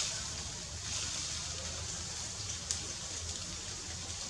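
Steady outdoor background hiss, with one faint click a little past the middle.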